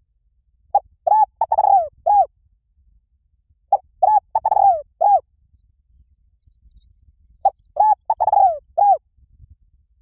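Spotted dove cooing: three phrases about four seconds apart. Each phrase is four coos, and the third coo is longer and falls in pitch.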